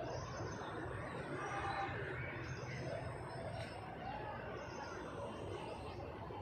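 Outdoor ambience: faint bird chirps and distant voices over a steady low rumble.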